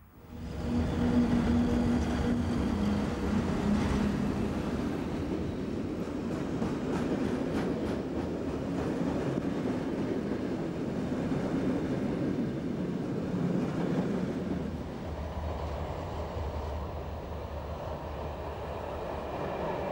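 Electric trains running on the rails: a steady rumble of wheels with a hum that drops in pitch in the first few seconds, and clicking over the rail joints. About fifteen seconds in it changes to a lower, softer rumble.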